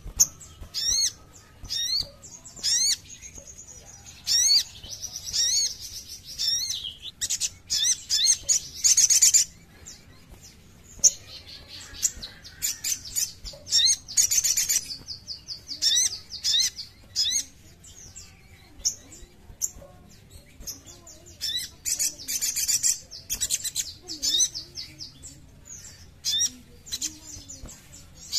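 Olive-backed sunbird singing: sharp, high chirps and quick trilled runs that come in bursts separated by short pauses.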